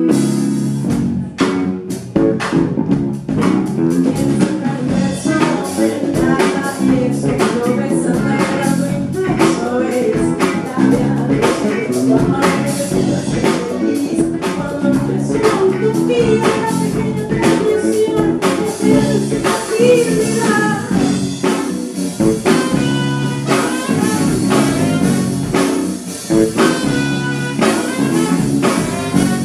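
Live soul-folk band playing: a woman singing over electric bass, drum kit and saxophone.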